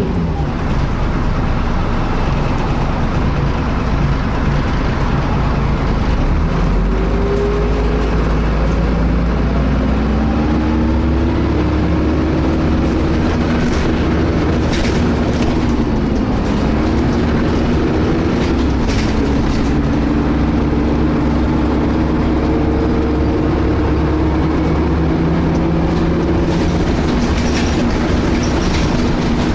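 Cabin sound of a DAF-chassis Alexander ALX300 single-deck bus under way: steady engine and road rumble with a whine whose pitch rises, dips about halfway, then holds, like a cooling fan. Its cause is unknown to the uploader. Scattered rattles from the bus.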